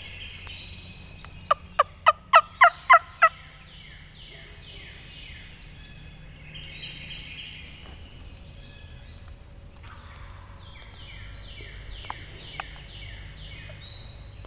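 A run of seven loud hen-turkey yelps, about four notes a second, made on a turkey call. Songbirds sing down-slurred chirps throughout.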